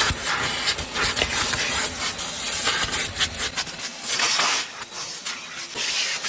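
Loud hiss of rushing air from a car-detailing air nozzle, swelling and dropping in uneven surges, with a few short clicks.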